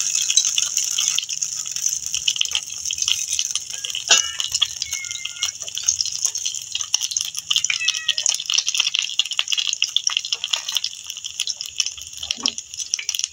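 Boneless chicken pieces sizzling and crackling in hot oil in a non-stick frying pan, a dense hiss full of fine pops. Kitchen tongs click against the pan as the pieces are turned, sharpest about four seconds in.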